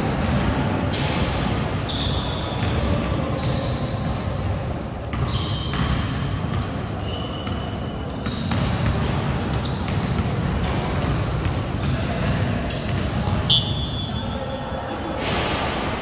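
Indoor basketball game in a large gym hall: a basketball bouncing on the court and players' feet hitting the floor, with short high sneaker squeaks now and then and players' voices calling out.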